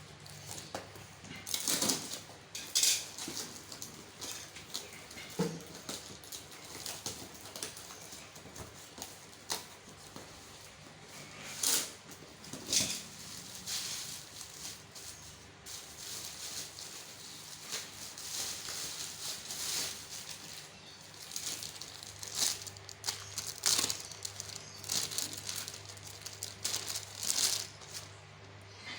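Packaging being opened and unwrapped by hand to get at a replacement fridge control board: irregular rustling and crinkling in short bursts, some louder handling noises among them.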